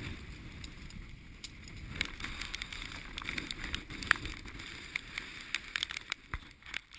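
Strong wind buffeting the microphone aboard a sailboat, a steady low rumble under the rush of water, with a rapid scatter of sharp clicks and knocks starting about two seconds in.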